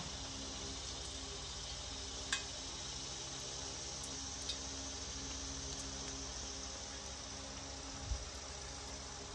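Doughnuts being lowered into hot oil in a cast-iron Dutch oven with a wire spider strainer: a sharp metal click about two seconds in, a lighter one later and a soft thump near the end, over a steady high hiss.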